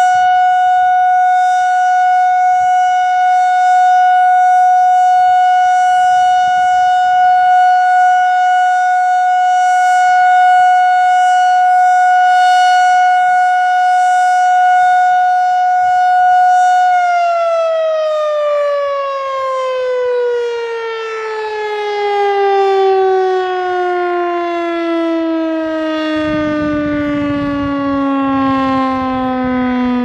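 STH-10 outdoor warning siren sounding a steady single-tone alert, pitched high, which the uploader suspects comes from too much voltage. A little over halfway through it winds down, and its pitch falls smoothly and steadily as the test signal ends.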